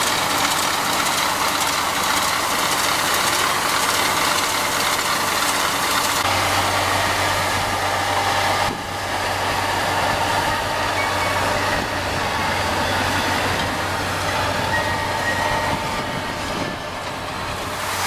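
A Case tractor's diesel engine running steadily while it pulls a ROC RT1000 hay merger, together with the merger's pickup and belt lifting and moving cut wheat hay. The sound changes abruptly about six seconds in, when a steady low hum comes in, and dips briefly near nine seconds.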